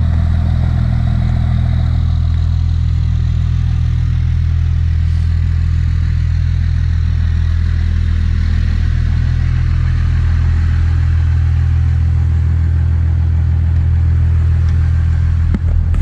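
An engine running steadily at a constant speed, a low drone with no change in pitch.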